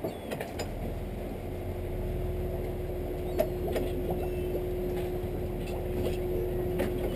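An engine idling steadily, a low rumble with a steady hum over it. A few light knocks sound over it, the sharpest about three and a half seconds in.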